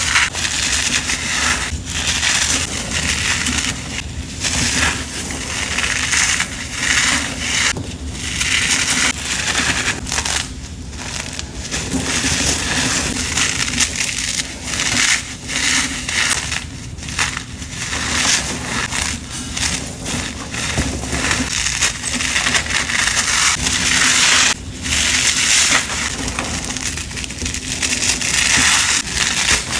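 Dry, powdery material crunching and crumbling as it is crushed, a continuous crackle with brief pauses every few seconds.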